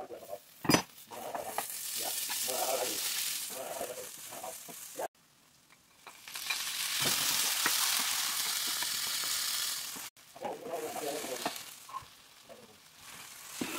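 Onions and spices frying in hot oil in a pan and stirred with a wooden spatula, with a sharp knock about a second in. Chopped tomatoes go in partway through and the sizzle grows louder for a few seconds, then settles to a lighter frying with stirring.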